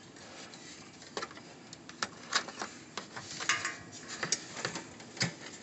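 Scattered light clicks and taps of hands and tools working at wiring and parts under the car, irregular, with a small run of clicks a little past the middle.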